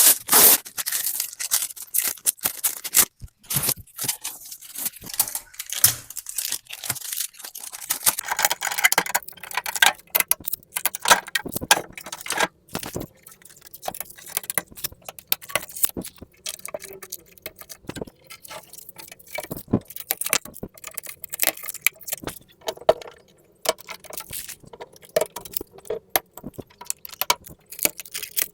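Unboxing handling sounds from a new refrigerator and its packaging: irregular rustling and crinkling with many sharp taps and clicks. The sounds are denser and louder in the first half, then sparser.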